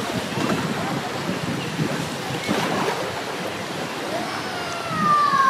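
Steady rushing of a waterfall and river water. A brief falling call cuts across it near the end.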